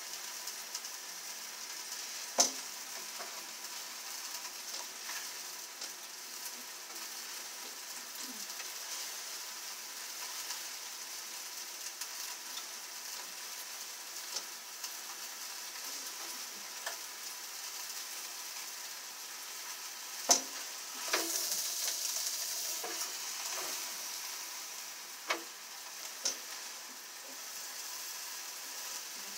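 Sausage links sizzling on an electric George Foreman contact grill: a steady crackling hiss with a few sharp pops of spitting fat, and a louder burst of hiss about three-quarters of the way through.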